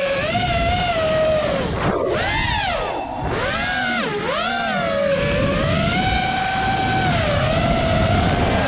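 A high-revving vehicle engine driven hard. Its pitch climbs and falls again and again as the throttle opens and closes. There are quick drops about two, three and four seconds in, then a longer steady stretch at high revs.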